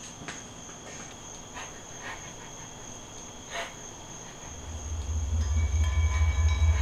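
Crickets chirping steadily, with a few faint ticks. About four and a half seconds in, a deep pulsing low drone of a horror film score swells up, and sustained musical tones start to come in over it.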